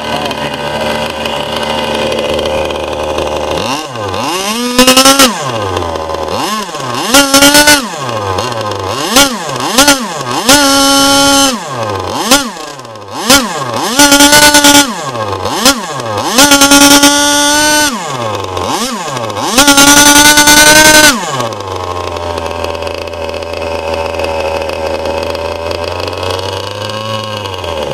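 K&B 72 two-stroke glow engine driving a Byrojet ducted fan. It runs steadily, then is revved repeatedly to full throttle and back in short blips and longer held bursts, the fan's pitch rising and falling each time. About three-quarters of the way through it drops back to a steady idle.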